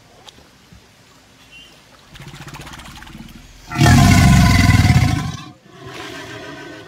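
American alligator vocalizing up close. A low pulsing growl starts about two seconds in, then a loud, harsh bellow lasts under two seconds, and a softer rumbling growl follows near the end.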